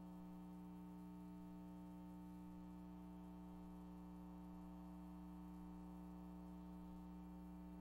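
Faint, steady electrical mains hum, unchanging throughout, with no other sound heard.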